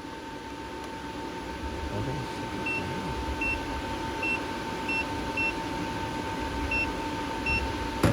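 Ultrasonic plastic welding machine running with a steady electrical hum, with seven short high beeps in an uneven rhythm through the middle and a sharp click at the very end.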